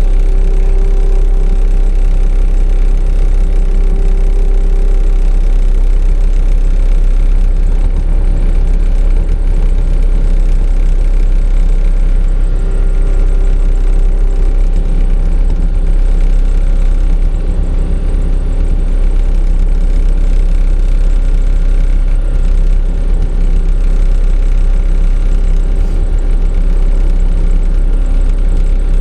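Excavator's diesel engine running steadily at low revs, with a higher whine that fades in and out a few times.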